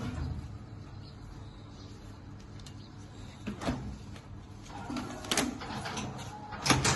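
Box strapping machine being worked, giving a few short mechanical clicks and scrapes, the loudest near the end.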